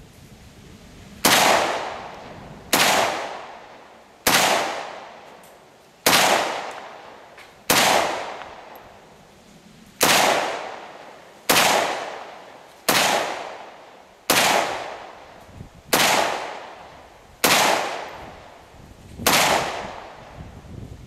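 Rock River Arms LAR-47 semi-automatic rifle in 7.62x39 fired twelve times, in steady single shots about a second and a half apart, with one longer pause midway. Each sharp report trails off over about a second.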